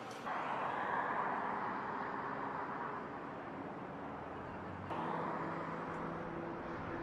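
Outdoor street ambience with vehicle traffic. It gets louder about a quarter of a second in and again about five seconds in, and a steady low hum comes in at the second step.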